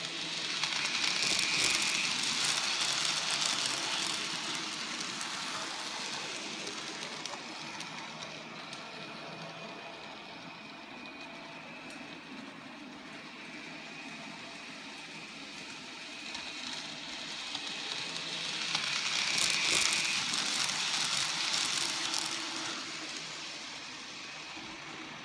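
N gauge model train running round the layout: a small motor whine over the noise of wheels on the track. It grows loud twice, about eighteen seconds apart, as the train passes close, and fades in between.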